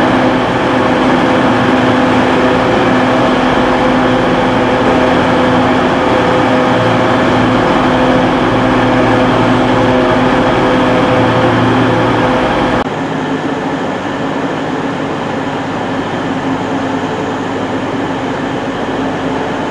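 Train running with a steady droning hum and a constant tone. About two-thirds of the way through the sound drops abruptly to a quieter, thinner hum.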